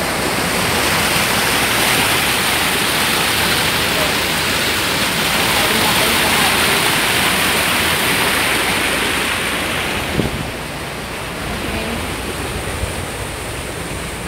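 A small rocky stream rushing and cascading over boulders, a steady loud rush of white water. About ten seconds in there is a brief knock, and the rush drops to a lower level.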